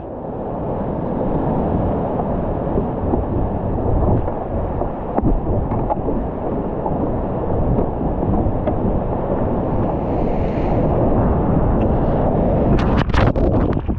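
Whitewater rushing steadily and loudly around a kayak running a rapid toward a waterfall, with wind buffeting the camera microphone. Near the end comes a quick cluster of sharp splashes as the kayak drops into the churning foam at the base of the falls.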